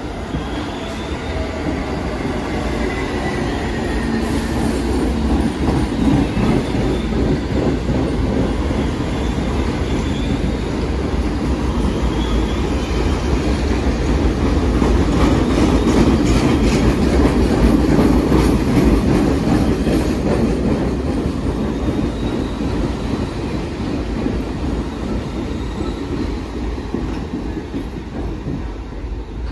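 An R46 subway train runs through a station without stopping. It rumbles louder as it approaches, reaches its loudest about halfway through as it passes, then fades as it moves away. The wheels clatter over rail joints and squeal faintly now and then.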